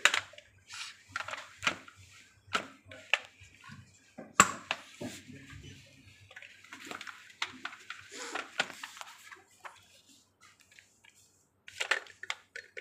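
Hard plastic parts of an R for Rabbit Chocolate Ride stroller knocking and clicking as the front wheel unit is handled and fitted to the frame. The clicks and knocks are irregular, and the sharpest comes about four seconds in.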